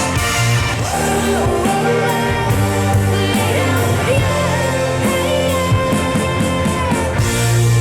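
Rock song with a singing voice and a strong bass line, played back over hi-fi loudspeakers.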